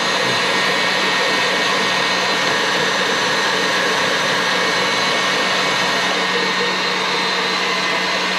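Steady whir of an electric motor running without a break, with a constant low hum.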